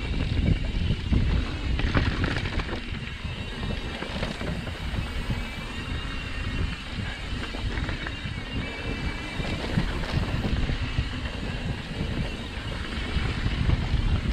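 Mountain bike rolling fast down a dirt singletrack: a steady low rumble of tyres on the trail and wind on the microphone, with frequent small knocks and rattles from the bike over bumps.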